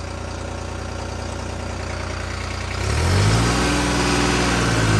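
New Holland 3630 tractor's diesel engine running steadily. About three seconds in it becomes suddenly louder and deeper and holds there: the tractor is pulling in third high gear with the fuel delivery at its normal setting.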